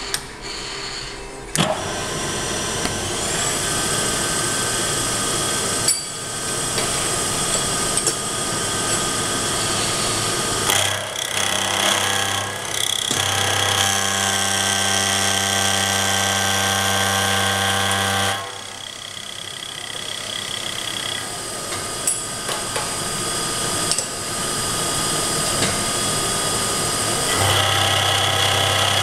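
Vertical milling machine's spindle starting with a rising whine, then running steadily with a cermet-insert face mill. A second, lower motor hum joins for several seconds midway and again near the end as the cutter is brought to a quarter-inch cold-rolled steel bar.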